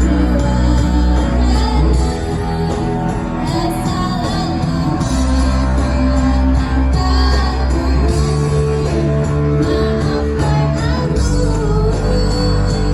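Choir singing over an amplified accompaniment with a heavy bass, the notes held and steady.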